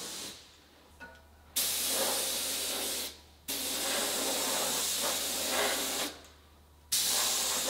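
Compressed-air paint spray gun spraying water-based paint in three long hissing passes, each about one and a half to two and a half seconds, with short silent gaps where the trigger is released.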